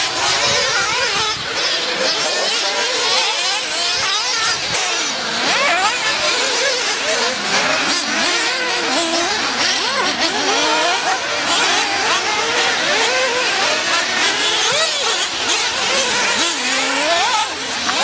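Several 1/8-scale nitro RC buggies' small two-stroke glow engines running at once, their high-pitched whines overlapping and constantly rising and falling as the drivers work the throttle.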